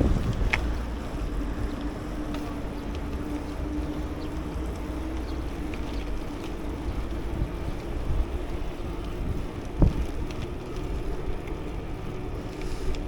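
Wind buffeting the microphone while riding, a steady low rumble, with a faint steady hum between about two and eight seconds in and a single sharp knock near the ten-second mark.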